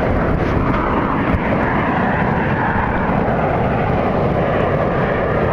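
Steady rushing noise of heavy surf and wind on the microphone.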